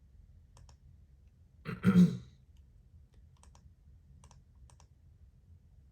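A single short, loud cough-like throat noise from a man about two seconds in, with a few faint computer mouse clicks.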